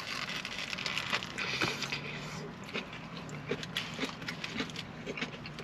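Close-up chewing and mouth sounds of someone eating a burger, with small wet clicks throughout and a rustling in the first two seconds or so.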